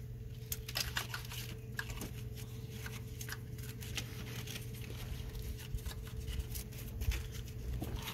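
Scattered light clicks and rustling as gloved hands work an alternator's wiring-harness connector and its corrugated loom into place, over a steady low hum.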